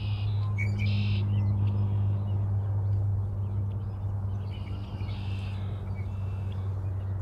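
Songbirds giving short calls in small clusters, near the start and again about five seconds in, over a steady low hum.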